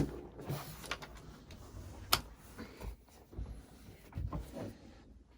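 Scattered clicks, knocks and soft thumps from a new padded chiropractic table being adjusted and settled onto, with sharp clicks at the start and about two seconds in.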